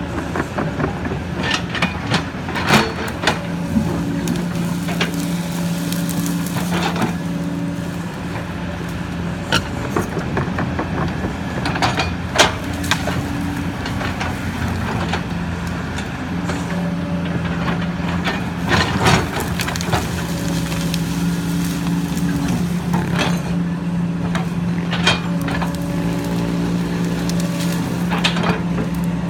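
Kobelco SK140 hydraulic excavator at work: its diesel engine runs with a steady whine that fades and comes back several times, with scattered sharp knocks and clanks.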